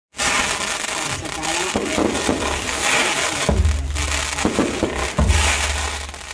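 Fireworks going off: a dense crackling and hissing of rockets and sparkling shells, with two deeper low rumbles in the second half.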